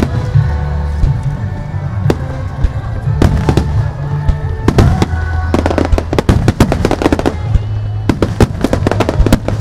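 Starmine fireworks barrage: many shells bursting and crackling in quick succession, over music with a steady bass line.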